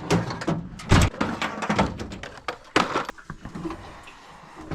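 A series of knocks, thuds and clatters, about one a second, as cleaning equipment is handled and unloaded from a work truck.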